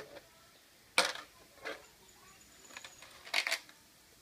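Sharp clicks and plastic clacks of an RC monster truck's body shell being handled, as its body clips come out and the shell is lifted off the chassis. The loudest click comes about a second in, and a quick run of clicks follows about three seconds in.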